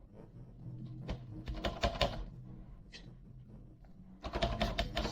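Olivetti Lettera 25 portable typewriter's mechanism clicking and clacking as it is worked, in two bursts of rapid clicks. The carriage is locked and does not advance.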